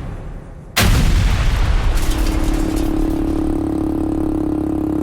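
A sudden loud blast of noise about a second in, then an ATV engine running with a steady hum.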